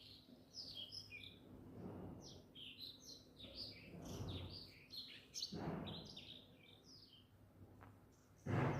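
Small birds chirping in quick, short notes, with a few soft rustling sounds underneath.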